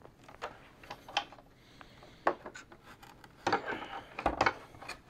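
Metal stringing-machine parts (the drop weight arm and bar) knocking, clicking and rubbing against the machine's base as they are handled and fitted together. The knocks are scattered at first, then come in a denser run of louder clunks, including a low thump, between about three and a half and four and a half seconds in.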